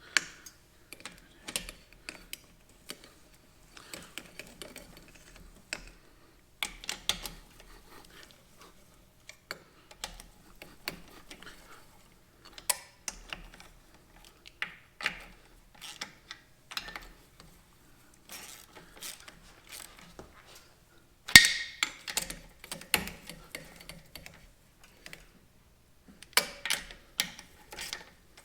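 Hand tools and metal parts clicking and clinking in irregular short strokes, with ratchet-like clicks, as a cover is fitted and bolted onto a sand rail's transaxle. One sharp metal clank about three quarters of the way through is the loudest sound.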